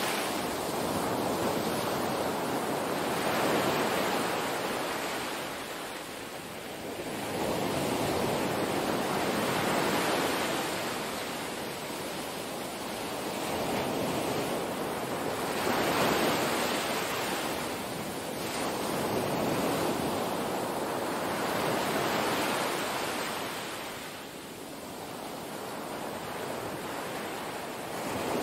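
Small waves washing onto a sandy beach, the surf swelling and fading every few seconds.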